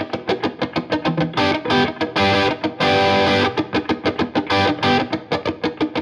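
Background music: a fast-picked guitar riff with distortion.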